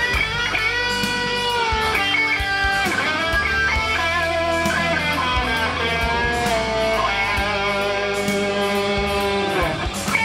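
Electric guitar solo played through a Marshall JCM 800 amplifier driving a half stack: sustained lead notes with string bends, and a long falling slide near the end.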